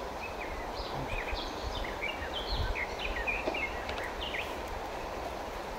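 A small songbird twittering: a quick run of short, high, sliding chirps, over an irregular low rumble.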